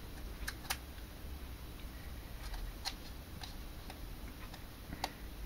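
Faint, irregularly spaced clicks and ticks from a printed manual being held and handled, over a low steady room hum.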